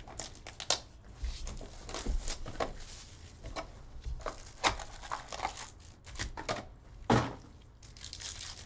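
Plastic wrap and foil crinkling and tearing as a sealed trading-card hobby box is unwrapped and opened and a foil card pack is ripped open, in a run of short, sharp rips. The loudest rips come just under a second in and about seven seconds in.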